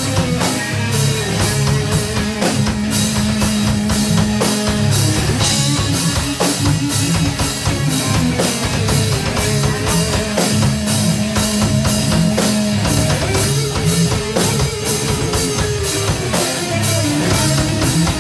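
Live metal band playing loud: distorted electric guitars holding long notes over bass and a drum kit, with steady cymbal hits about two to three times a second.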